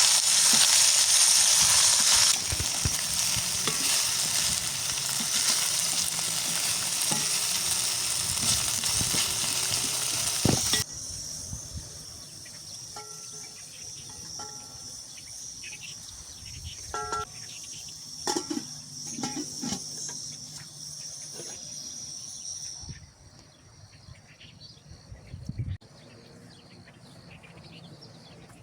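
Food sizzling as it fries in a pan, a steady loud hiss that stops abruptly about eleven seconds in. After it, much quieter scattered clicks and light taps.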